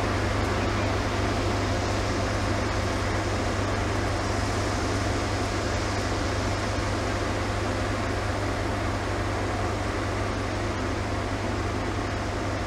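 M62-type diesel locomotive (PKP Cargo ST44) idling, its two-stroke V12 diesel giving a steady low hum under an even hiss.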